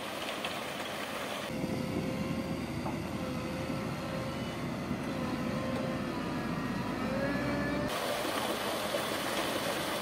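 A concrete mixer truck runs with an even, hissy noise as concrete pours down its chute. From about a second and a half in to about eight seconds, a single-drum road roller's engine takes over: a heavier rumble with a thin, wavering whine over it. Then the mixer truck's sound returns.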